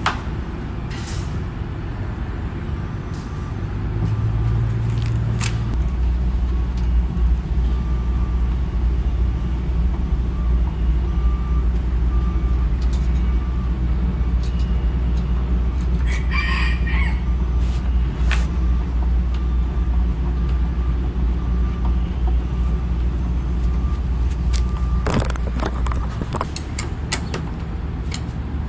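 Scattered metal clicks from a doorknob and latch being fitted, with a quick run of clicks near the end, over a steady low hum. About halfway through, a rooster crows once.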